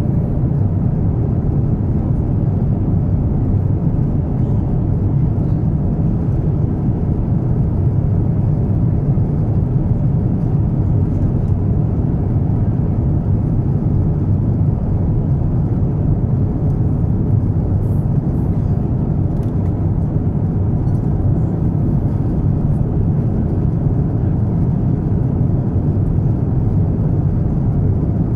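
Steady low rumble inside the cabin of an Airbus A350-900 in flight: its Rolls-Royce Trent XWB engines and the air rushing past the fuselage, unchanging throughout.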